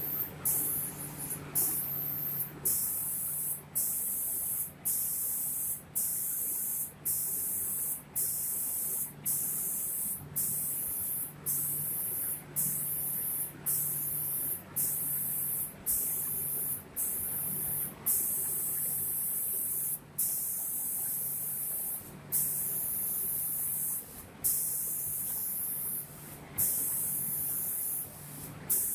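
Automatic door painting machine's spray guns hissing in short bursts, about one a second, each cut off by a brief pause, with a few longer bursts later on, over a steady low machine hum.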